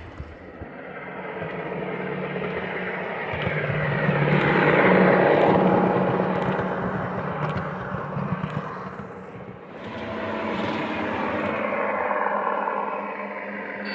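Lionel O gauge Union Pacific M-10000 streamliner model running on three-rail track, its motor and wheels making a steady rolling whir with a low hum. It swells to a peak about five seconds in, dies down, then builds again near the end, as if the train is passing close by twice.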